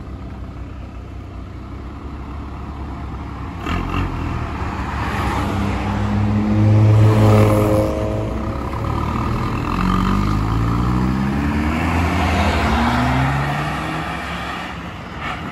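A Tofaş car's engine and aftermarket 'pırpır' exhaust, loudest as it passes about seven seconds in, then revving up through the gears in three rising sweeps as it pulls away.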